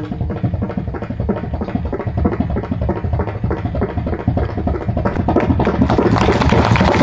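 Pakhawaj played in a fast, continuous stream of strokes with a deep bass drone, swelling louder near the end: a drum imitation of something approaching.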